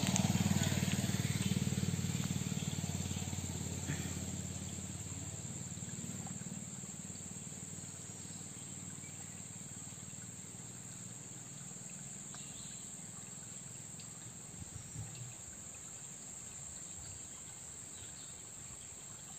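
Steady high-pitched drone of insects such as crickets. Under it a low hum fades away over the first several seconds, and there are a few faint ticks.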